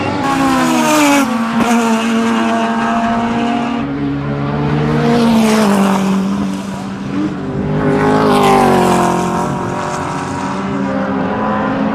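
Two race cars at full throttle, one of them a Ford Escort with a Cosworth-headed Pinto four-cylinder on twin Dellorto carburettors. The engines rise in pitch through the gears, with shifts about a second in and near four seconds, then ease off and rev up again later.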